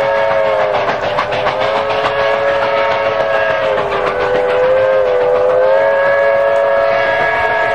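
Southern Pacific five-chime steam whistle on Sierra Railway No. 34 sounding one long continuous blast, a chord of several tones. Its pitch sags slightly in the middle and rises again.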